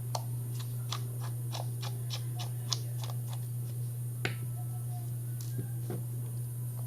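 Rapid light clicks, about four a second for the first three seconds and then a few scattered ones, from a small screwdriver working the tiny case screws of a GoPro Hero5 Black. A steady low hum runs underneath.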